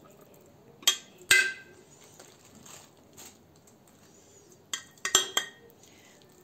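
Metal spoon clinking against a glass jar while thick tomato paste is spooned into it: two sharp clinks about a second in, then a quick cluster of clinks around five seconds in.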